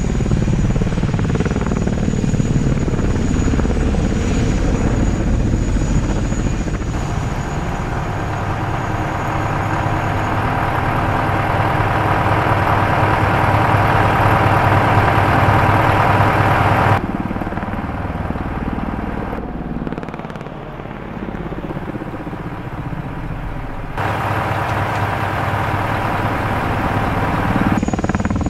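Helicopter-like rotor hum of a large multirotor cargo drone. A few seconds in it changes to a steadier machine hum with several held tones, which cuts off abruptly past the middle into a quieter, lower hum. The opening rotor sound returns near the end.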